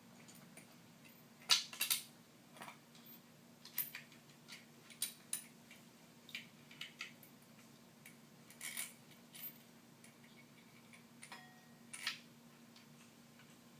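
Irregular clicks and light clinks of metal parts and screws being handled as a steering wheel is fitted onto its hub adapter, over a faint steady low hum.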